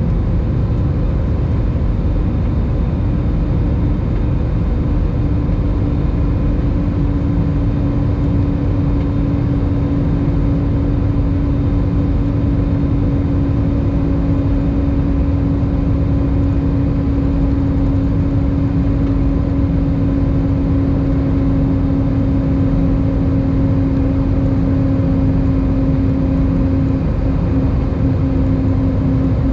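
Inside the cabin of an Airbus A319 climbing after takeoff: the steady low rumble of its jet engines and rushing air, heard from a seat over the wing, with a humming drone that sets in a few seconds in and holds steady.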